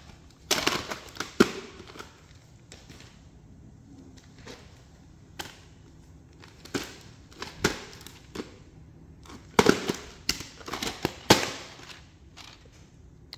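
VHS cassettes and their plastic cases being handled: a run of sharp plastic clicks and clacks, bunched about a second in and again in the last few seconds, with quieter knocks in between.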